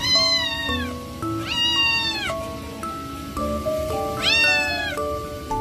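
A cat meowing three times while being shampooed in a bath, each meow long and drawn out, dropping in pitch at its end. Background music plays underneath.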